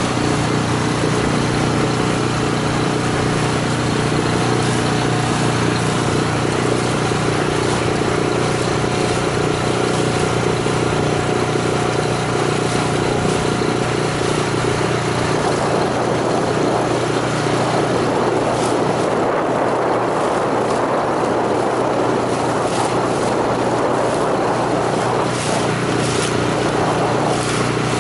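Outboard motor driving an inflatable boat, running steadily under way. About halfway through the sound turns rougher and noisier.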